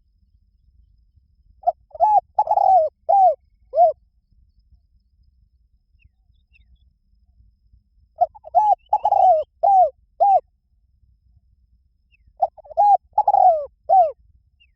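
Spotted dove cooing: three phrases about five seconds apart, each a quick run of about five short coo notes that rise and fall.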